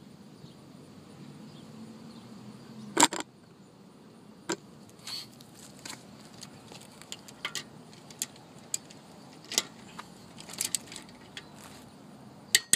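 Scattered metallic clinks and clanks of tools and hardware being handled, with one loud clank about three seconds in and a quick few more near the end.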